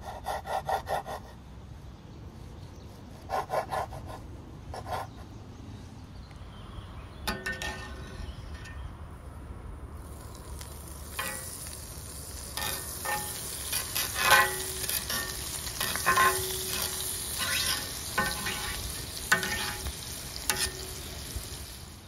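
A chef's knife cutting sausage on a wooden cutting board: short runs of quick taps near the start. From about ten seconds in, butter sizzling in a hot cast-iron grill pan, with a spatula scraping and tapping on the pan.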